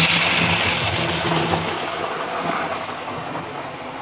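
A model train running past close by on the track, its motor whirring and wheels running on the rails. It is loudest at the start and fades away over the next couple of seconds.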